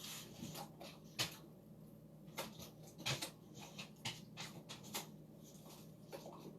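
Faint, scattered clicks and light taps, several in all and irregularly spaced, over a low steady hum.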